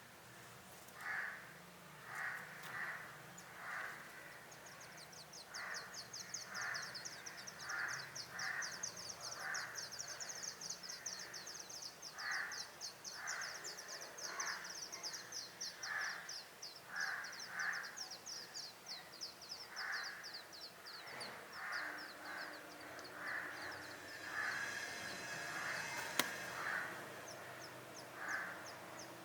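Brown rock chat nestlings begging in a fast, high-pitched chatter, starting a few seconds in and breaking off a few seconds before the end, over harsh bird calls repeated about once a second.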